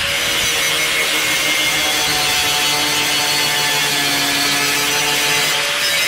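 Angle grinder grinding the edge of a steel axe head. The motor runs steadily under load, its whine wavering slightly in pitch, over the harsh hiss of the disc on the metal.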